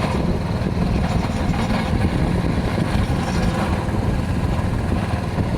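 Boat engine running steadily, moving the boat between fishing spots.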